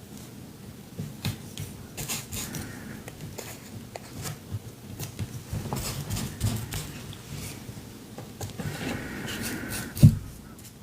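Paper being handled and rubbed down with glue onto a canvas for collage: soft rustles and light scratchy strokes, with one sharp low knock near the end.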